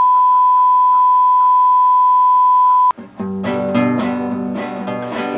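A steady, loud colour-bar test tone that cuts off suddenly about three seconds in. Strummed acoustic guitar music follows.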